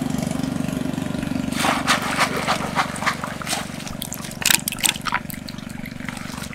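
A small engine idling with a steady low hum, under a run of water splashes and pouring from about one and a half seconds in that fade out shortly before the end.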